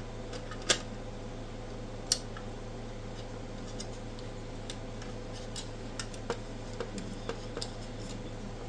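Small clicks and taps of hands handling metal parts and wire inside an electronic instrument: two sharp clicks about one and two seconds in, then scattered lighter ticks, over a steady hum.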